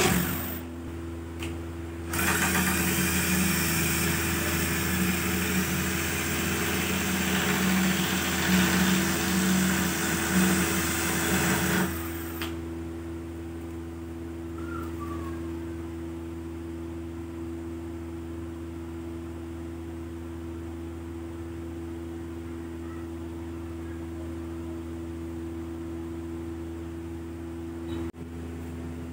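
Cordless drill spinning a wooden blank through a nut-edged dowel cutter, shaving it round. It runs with a short pause about half a second in, then stops suddenly about twelve seconds in, leaving a steady low hum.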